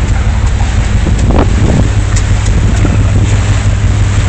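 Heavy wind buffeting the microphone on an open ship's deck, with a steady low rumble from the ship underneath.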